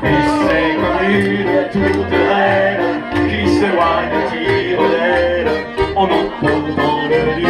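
Live musette music: a chromatic button accordion playing melody over a steady, pulsing bass, with women's voices singing along.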